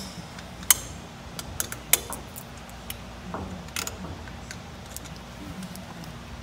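Scattered sharp metal clicks and taps from hands and tools working the mounting bolts of a pneumatic vane actuator's spring unit, the two loudest about a second and two seconds in.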